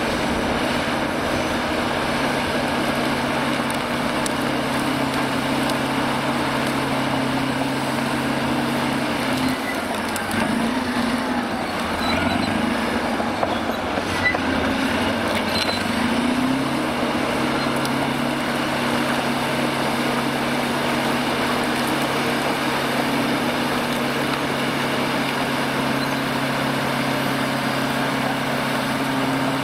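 Cat D9R crawler bulldozer's diesel engine running with a steady drone as its blade pushes stumps and brush. About ten seconds in, the engine note dips and wavers for several seconds under the load of the push, with one sharp knock near the middle, then settles back to a steady run.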